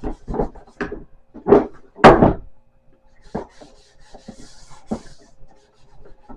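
Sponge scrubbing the outside of a crock pot (slow cooker) in short strokes, with knocks as the pot is handled; the loudest stroke comes about two seconds in.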